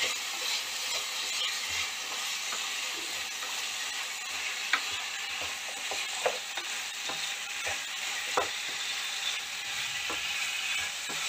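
Cubed vegetables and spice masala frying in a kadhai, sizzling steadily while a wooden spatula stirs them, with a few light scrapes and taps of the spatula against the pan.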